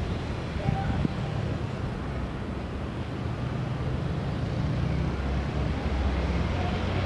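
Steady low rumble with a hiss over it: outdoor background noise picked up by the camera's microphone, with no distinct event.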